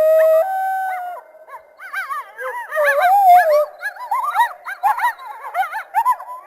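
Coyotes howling and yipping: a held howl note through the first second, then a fast run of high, overlapping yips that rise and fall in pitch.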